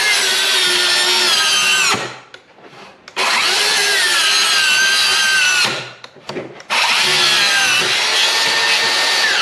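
DeWalt FlexVolt 7-1/4-inch cordless circular saw ripping a laminated veneer lumber (LVL) beam under heavy feed pressure. The motor whine sags in pitch as the blade bogs down, then cuts out. It is restarted and bogs again, stopping twice in all: the saw is stalling out in the dense LVL.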